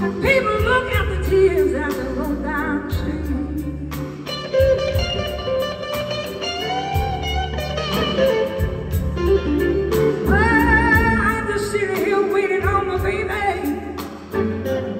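Live electric blues band playing a slow blues: a lead electric guitar plays bent, wavering notes over bass, drums and keyboard.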